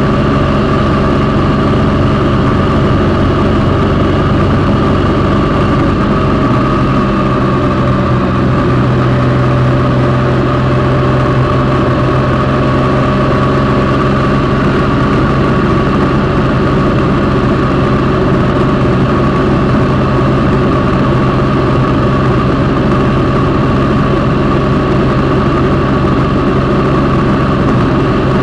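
Triumph Sprint ST1050's three-cylinder engine running steadily as the motorcycle cruises through a road tunnel, its note shifting slightly about seven seconds in.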